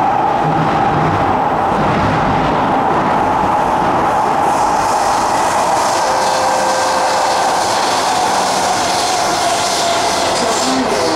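Kawasaki-Nippon Sharyo C751B electric multiple unit running, heard from inside the car: steady wheel-on-rail running noise with a whine from its Fuji Electric IGBT-VVVF traction equipment that sinks slightly in pitch. A hiss grows in from about halfway through.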